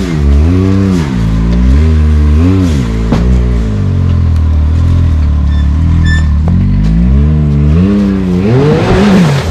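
Side-by-side UTV engine revving up and down in repeated throttle blips as the machine climbs a rock obstacle. It holds steadier for a few seconds, then revs higher again near the end.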